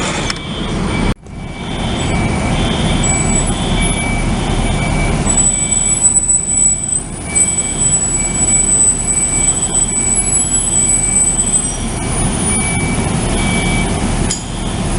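Apartment building fire alarm sounding, a high tone repeating in short pulses, over a steady low rumble. The sound drops out briefly about a second in.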